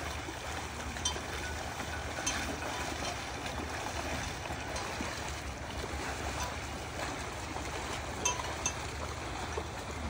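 Water buffalo wading and splashing through shallow muddy water, a steady watery noise broken by a few brief sharp sounds.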